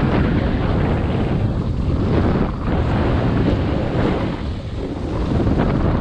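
Wind buffeting a GoPro Hero 7 Black's microphone while snowboarding downhill at speed, mixed with the board hissing and scraping over the packed snow. The noise is loud and uneven, with short lulls.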